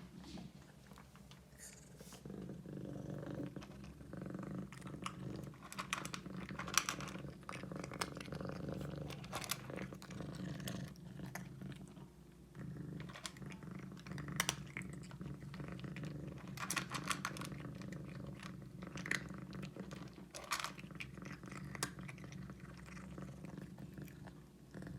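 Domestic cat purring steadily as it is fed, with short crunching clicks scattered through it from the cat chewing its food.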